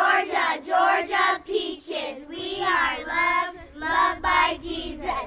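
A group of young girls singing a rhythmic cheer together in unison, one even syllable after another.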